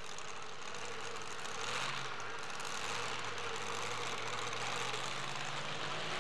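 Supercharged engine of a two-wheel-drive pulling truck idling, with a brief rise in pitch about two seconds in.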